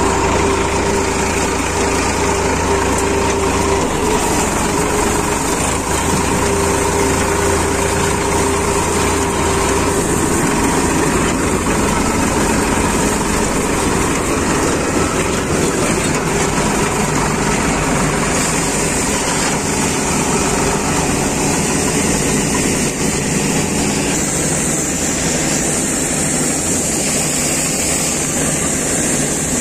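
Diesel tractor engine running steadily under way, heard from the driver's seat, with a combine harvester working close alongside.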